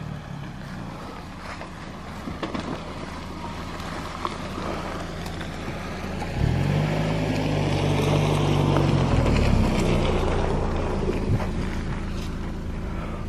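Ford Bronco's 2.3-litre turbo four-cylinder engine running at a slow crawl as the SUV rolls past on a trail of dry leaves, its tyres rustling and crackling; the engine is loudest as it passes close about six seconds in, then fades as it moves away.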